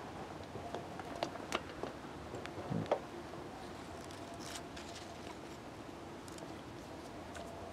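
Quiet background with a scatter of small clicks and rustles, one louder knock just before three seconds in, then a faint steady hum.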